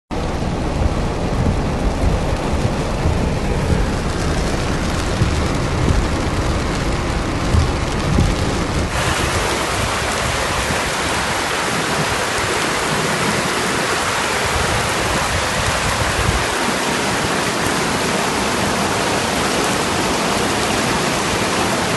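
Heavy rain in a storm: a continuous hiss of rain and running water, under a low, uneven rumble for the first nine seconds. About nine seconds in the sound changes abruptly to a steadier, brighter hiss, and the low rumble fades out a few seconds later.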